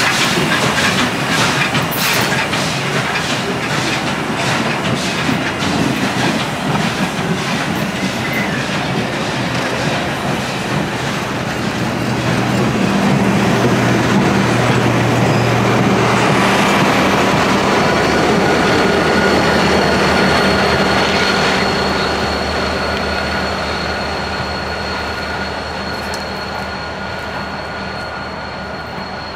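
Train wheels running on jointed rail: a regular clicking over the rail joints, then a long, thin, high-pitched wheel squeal. The sound fades toward the end.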